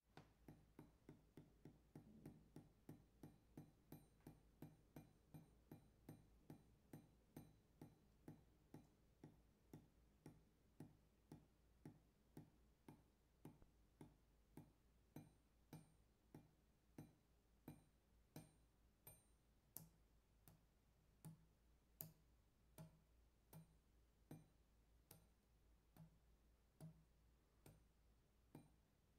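Water dripping onto metal: faint, regular drips, each a short ticking drop. They come about three a second at first and slow to one or two a second later on.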